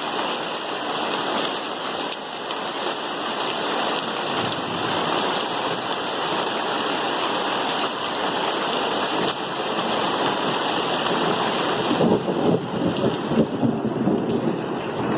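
Heavy downpour, a steady rush of rain. About three quarters of the way through, a low, uneven rumble of thunder rises over it.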